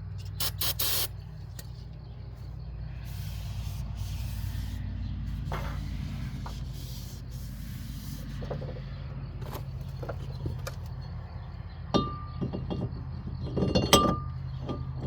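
Metal tools and parts being handled during a brake and hub job: a quick rattle of clicks at the start, scattered knocks, and two sharper clanks near the end, each with a short metallic ring. A steady low hum runs underneath.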